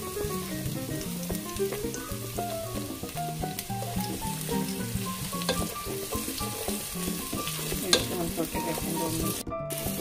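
Chopped onion frying in hot oil in a pan, a steady sizzle, with a few sharp clicks of a wooden spatula stirring it. Soft background music with short stepped notes plays underneath.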